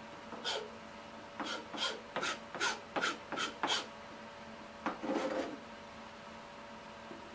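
A quick run of about eight short scraping strokes, roughly three a second, followed about a second later by a brief rustle.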